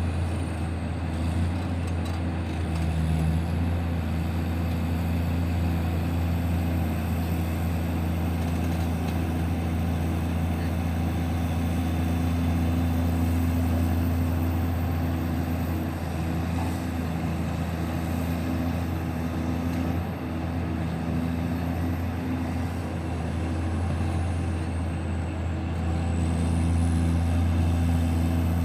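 Heavy mining machine's diesel engine running steadily with a deep, even hum.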